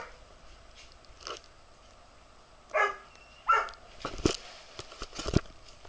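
A dog gives two short barks in quick succession, then a few sharp knocks follow.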